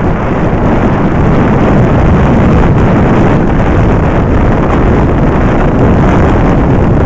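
Loud, steady wind buffeting on the microphone of a moving 100 cc Mondial motorcycle.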